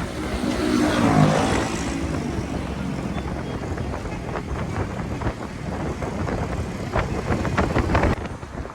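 Cars driving on a road, with one vehicle passing loud and close about a second in, then steady traffic noise and a few short sharp clicks near the end.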